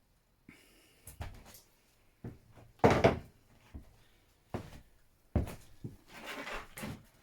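Knocks and clunks of scooter parts being handled during a strip-down, with the loudest about three seconds in and another sharp one past the middle. A rustling scrape comes near the end.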